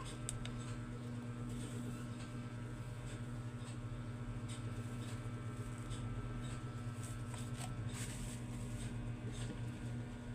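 A steady low hum with scattered faint clicks and taps, a few of them close together late on.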